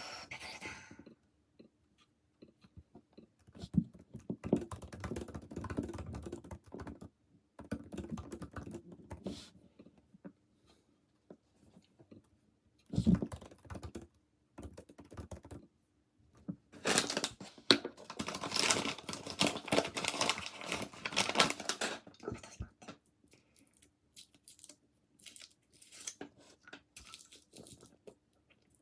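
Intermittent rustling, crinkling and light clicking from objects being handled, in several bunches with quiet gaps between them; the densest stretch comes a little past the middle.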